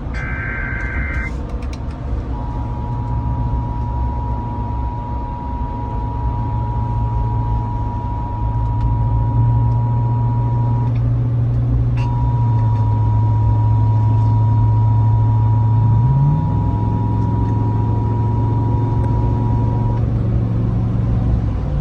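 Emergency Alert System opening signals: the end of the warbling SAME data header, then the steady two-tone EAS attention signal, broken by a short gap about 11 seconds in and stopping about 20 seconds in. A loud, steady low hum runs underneath and shifts up in pitch about 16 seconds in.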